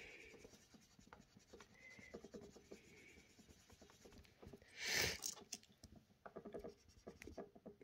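Felt-tip marker scribbling on paper, filling in small circles on a savings chart with quick, faint strokes and a couple of light squeaks, and one brief louder swish about five seconds in.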